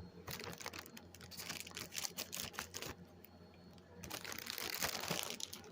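Packaging being handled and opened by hand: scattered sharp clicks and taps with crinkling, thickening into a longer stretch of rustling about four seconds in.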